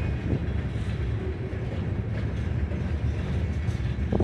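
Freight train cars, covered hoppers and a wrapped-lumber car, rolling past: a steady low rumble of wheels on rail, with a few short clicks, one about halfway through and one near the end.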